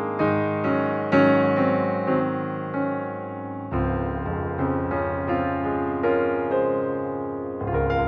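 Background piano music: melody notes over held chords, with a new low bass chord coming in about halfway through.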